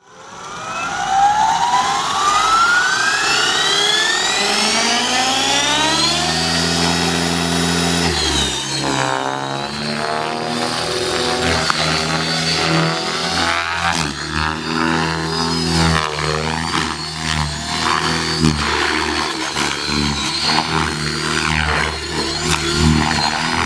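Align T-Rex 600E electric RC helicopter: its motor and rotors spool up with a rising whine over the first several seconds, then run at flight speed, the pitch and loudness shifting as it manoeuvres through stunts.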